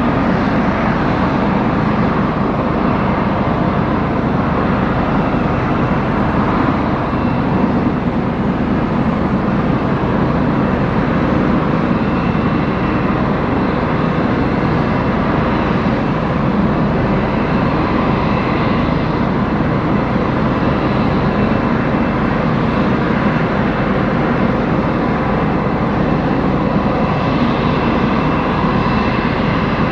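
Airbus A319CJ's twin IAE V2500 turbofan engines running steadily at taxi power: a constant jet rumble with a faint high whine.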